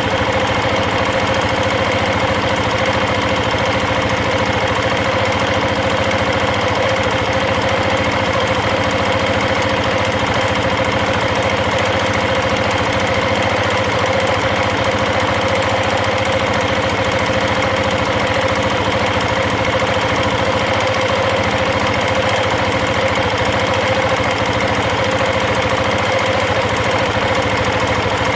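KTM 690 Enduro single-cylinder engine running steadily with a fast, even metallic ticking chatter from the valvetrain. This is valve chatter that shows once the engine is warm, after a rebuild with new rockers and shafts and valves re-shimmed to 0.076 mm.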